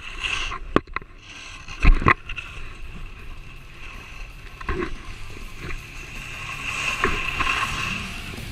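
Handling noise from an action camera on a selfie stick being swung about: several sharp knocks and bumps, the loudest about two seconds in, over a steady rushing noise of wind on the camera.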